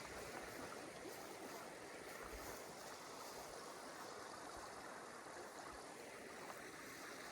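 Creek water running steadily, a faint, even rush.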